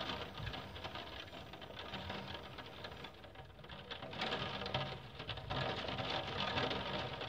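Rain pattering on the glass of a roof skylight, a dense run of small taps that grows heavier about four seconds in.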